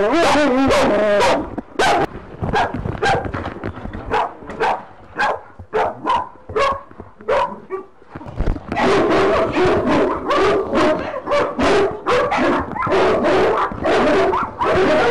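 Dogs in kennel pens barking and yelping. A wavering whine comes at the start, then separate barks, and about halfway through the barking turns loud, dense and overlapping.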